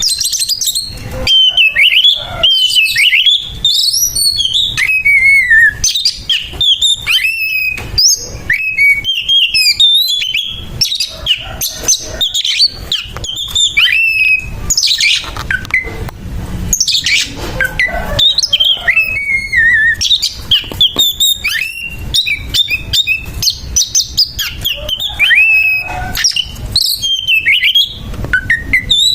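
Oriental magpie-robin singing a rapid, varied fighting song against a rival, in a continuous stream of whistled phrases mixed with harsh, rough notes.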